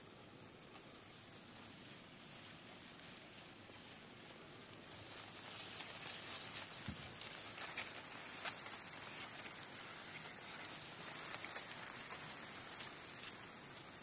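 Outdoor lake ambience with no calls: a fine, high-pitched crackling patter with scattered soft ticks, growing louder about five seconds in.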